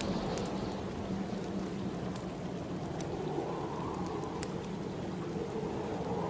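Steady snowstorm wind with a slowly wavering howl, over a wood fire crackling in a fireplace with a few sharp pops.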